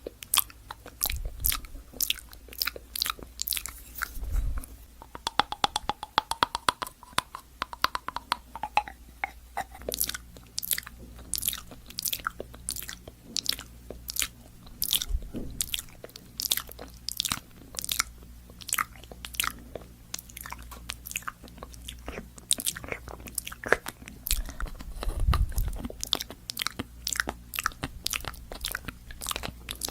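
Close-miked crisp clicks and crunches, irregular, one to a few a second, with a quicker rattling run about five to nine seconds in.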